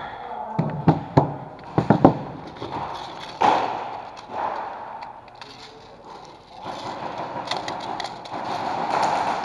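A few sharp knocks and clacks in the first two seconds, from airsoft pistols and magazines handled on a plywood bench, followed by a steady noisy rustle.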